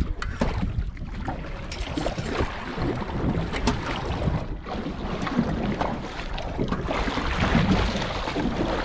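Wind buffeting the microphone over water lapping against a small boat's hull, with scattered light knocks and clicks.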